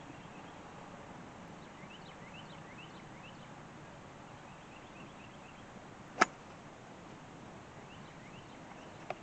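A single sharp crack of a driver striking a golf ball about six seconds in, the loudest sound, with a fainter click near the end. Small birds chirp in the background over a steady outdoor hiss.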